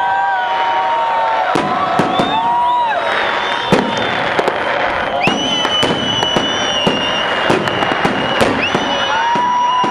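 A fireworks salute: many sharp bangs and crackling bursts in quick succession, with long whistling tones and crowd voices mixed in.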